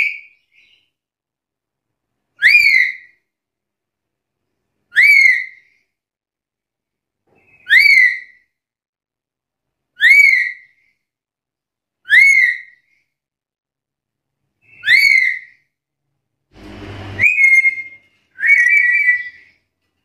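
Black-capped lory (Lorius lory) giving loud, short whistled calls that swoop sharply upward, six in a row about every two and a half seconds. Near the end come a short noise, a brief note and one longer, wavering call.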